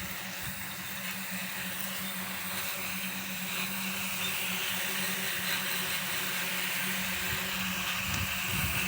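Lawn mower running steadily with a constant hum and the rush of its blade, getting slightly louder over the stretch.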